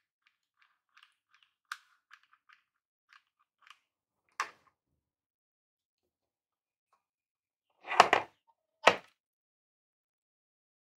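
Handling noise from the parts of a homemade PCB cutting machine on a workbench. Light clicks and taps come first, then a sharper knock, then two loud knocks about a second apart as the power supply and motor unit are moved and set down.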